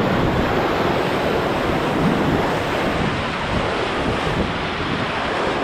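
Steady rush of whitewater rapids churning around a raft.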